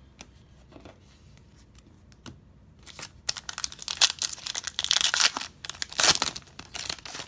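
Plastic wrapper of a 2017 Donruss Optic football card pack being torn open and crinkled by hand, a dense run of sharp crackles that starts about three seconds in and ends just before the close.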